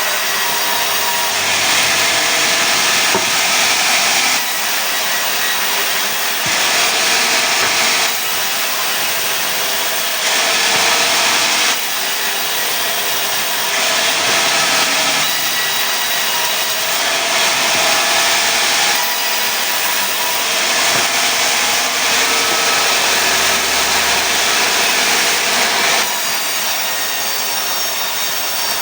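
Sawmill saw cutting pine into boards: a loud, steady cutting noise whose level shifts up and down every few seconds.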